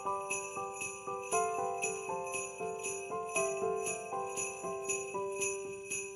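Background music: sleigh bells shaken on a steady beat over a tune of sustained notes.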